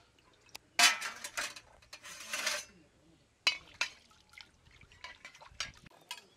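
Water splashing into a metal kadai (wok) being rinsed, in two short pours, followed by two sharp metal clinks and a few lighter knocks of a container against the pan.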